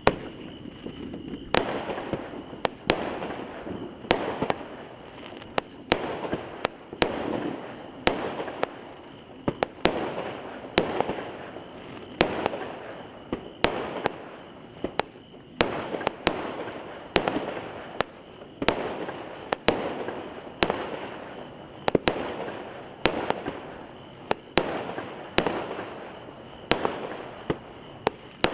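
Aerial fireworks going off in a long steady series, a sharp bang about once a second, each followed by a fading hiss.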